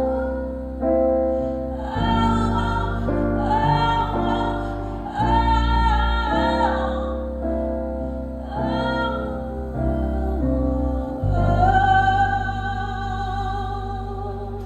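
Music: a woman singing long, wavering notes over keyboard chords that change every second or two, with a deep bass underneath.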